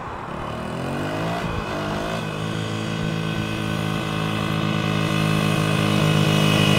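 Dirt bike engine revving up twice in quick succession, then running steadily and growing louder as the bike comes closer.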